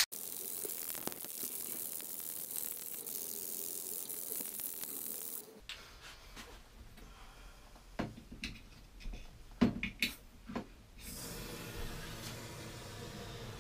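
Aerosol can of injectable cavity wax spraying with a steady hiss for about five seconds. A few light clicks and knocks of handling follow, and a fainter steady hiss comes back about eleven seconds in.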